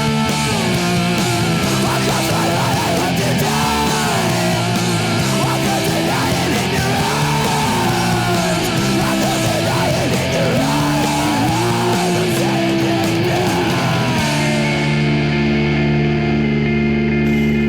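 Heavy rock soundtrack music with electric guitar: a bending melody line over a driving backing gives way to held chords about fourteen seconds in.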